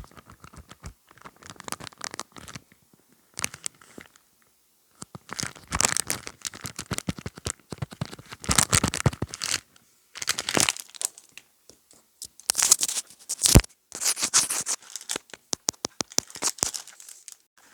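Close-miked crinkling and scratching ASMR trigger sounds: bursts of dense crackles, each a second or two long, with short pauses between them.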